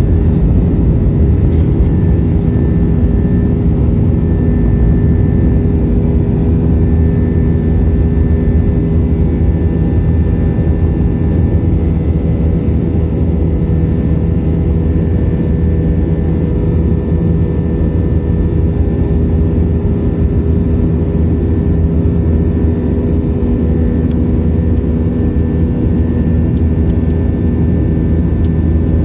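Jet airliner's engines heard from inside the passenger cabin: a loud, steady drone with several steady hum tones.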